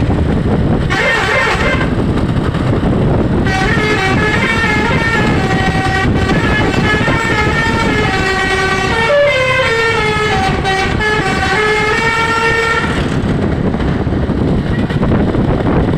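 Telolet basuri musical multi-tone bus air horn: a short blast about a second in, then a roughly nine-second tune of changing, gliding notes, over a steady low rumble.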